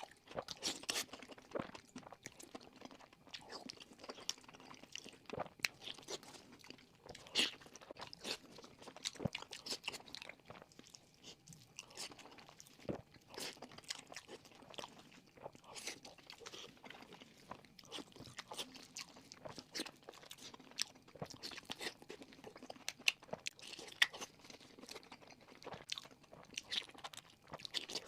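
A person chewing fried pork with an irregular run of crisp crunches.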